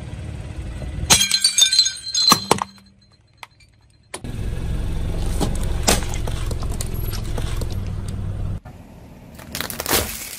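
A car tyre rolls onto a ceramic mug, which cracks and shatters in a quick series of sharp breaks with some ringing, about a second in. Then comes a steady low rumble of the tyre rolling slowly over gel water beads and a packet, with scattered small pops and clicks. Near the end there is a short burst of cracking as the tyre crushes a pile of plastic lighters.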